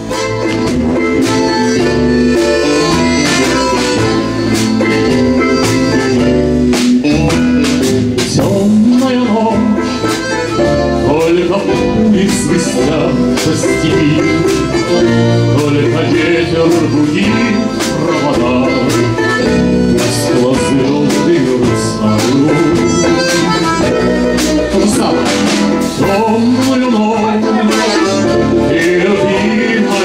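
Harmonica playing a melody over a band accompaniment of guitar and bass, continuous throughout.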